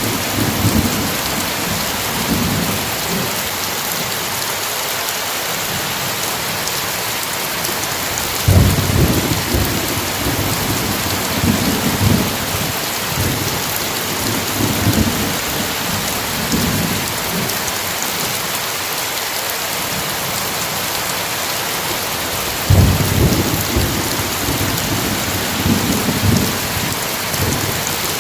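Steady heavy rain with rolling thunder: a low rumble at the start, then two louder rolls that break in suddenly about a third of the way in and again near the end, each rumbling on for several seconds.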